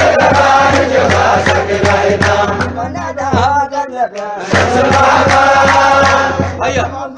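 Menzuma, Ethiopian Islamic devotional chanting: voices sing a melodic chant over a steady beat and a low sustained backing. The backing drops out briefly about four seconds in.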